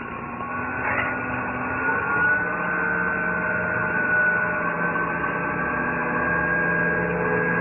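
CNC metal spinning machine running as its roller forms a spinning sheet-metal barrel on the mandrel: a steady mechanical hum with a whine that rises a little and then holds steady about two seconds in.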